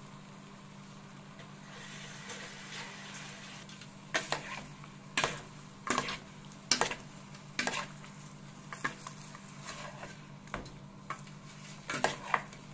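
A metal spoon stirring whole raw shrimp in a metal pot, scraping and clinking against the pot's sides in a run of sharp knocks. A steady low hum runs underneath.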